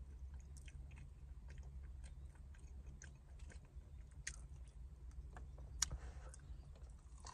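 Chewing and biting on a fried chicken wing: soft mouth noises with scattered small clicks, one sharper click about six seconds in, over a low steady hum.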